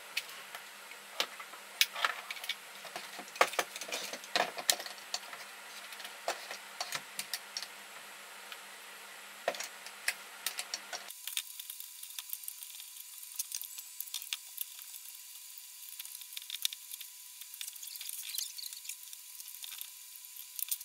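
Scattered clicks and small rattles of hard plastic as a steering column switch module, with its stalks and clock spring, is handled and taken apart by hand. About halfway the background changes abruptly to a faint steady tone with hiss.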